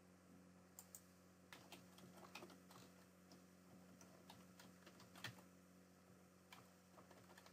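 Faint computer keyboard typing in short runs, with a few mouse clicks, over a low steady hum.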